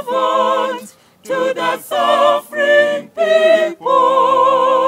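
Unaccompanied choral singing: several short sung phrases with brief breaks between them, then a long held note with vibrato starting near the end.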